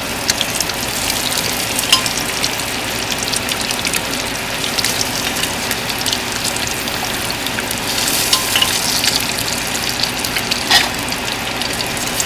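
Whole hard-boiled eggs frying in hot oil in a pot: a steady sizzle and crackle. A few sharp clicks of a metal spoon against the pot come through as the eggs are turned and lifted out.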